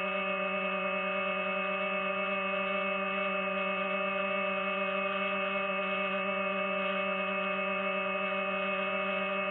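Drone hovering: its propellers give a steady, even-pitched hum that does not change.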